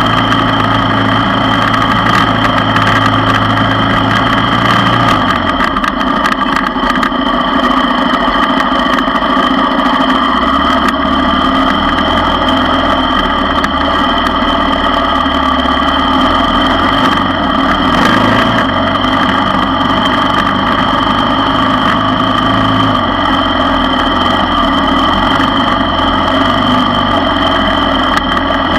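ATV engine running steadily while the quad is ridden along a dirt trail. The engine note shifts with the throttle: its low tone drops about five seconds in and changes again a few times later.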